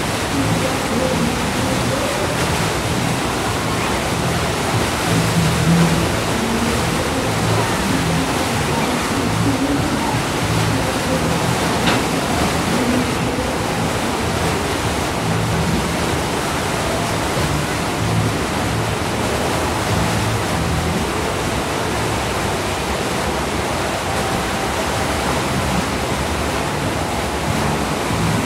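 Steady rushing of water churned up by a river passenger motor ship's propellers, with a low uneven rumble from its engines, as the ship manoeuvres close by.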